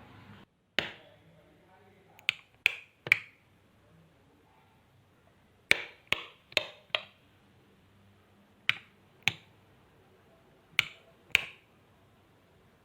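Sharp clicks of a switch being flipped on and off, about a dozen in all. They come mostly in quick pairs or short runs, about half a second apart, with pauses of a second or two between groups.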